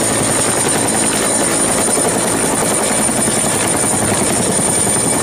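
Helicopter with a two-bladed main rotor hovering: a steady, rapid beating of the rotor blades under an even, high-pitched whine.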